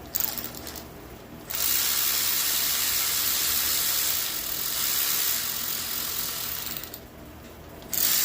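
A few quick mechanical clicks and rattles, then a steady hiss for about five seconds that stops and starts again near the end.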